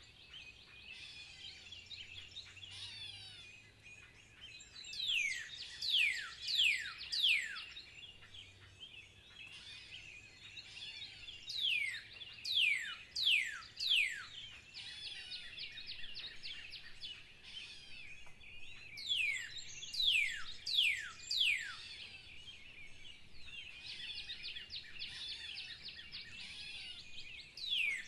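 Birds singing: one bird repeats a loud whistle that slides steeply downward, in runs of four to six notes about two-thirds of a second apart. Between the runs there is a steady high twittering chorus of other birds.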